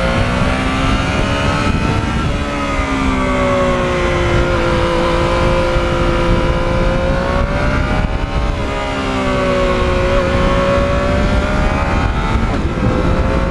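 Yamaha MT-09 inline three-cylinder motorcycle engine running under way through its quiet exhaust. Its pitch rises and falls a few times as the bike speeds up and eases off, over a steady rush of wind.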